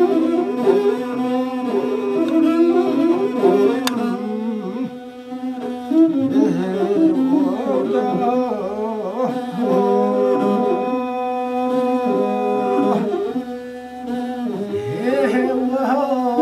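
Imzad, the Tuareg single-string bowed fiddle, playing a sustained, wavering melody, briefly softer twice.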